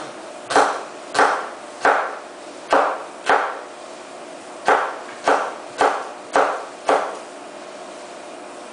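Kitchen knife chopping onion on a wooden cutting board: about ten separate strikes, roughly two a second, with a short pause midway, stopping shortly before the end.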